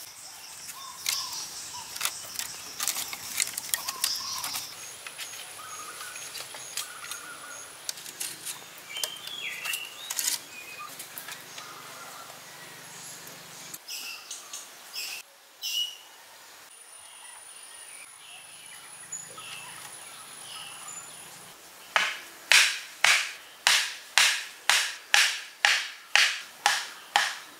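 Birds chirp and a high insect buzz comes and goes, with scattered light knocks and clicks of handwork. Near the end come about a dozen loud, even strokes of a hand tool, roughly two a second.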